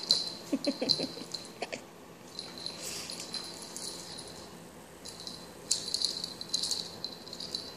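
A pet meerkat scrabbling and digging with its claws at a towel on a cowhide rug: spells of quick, rattly scratching, at the start, a few seconds in and near the end.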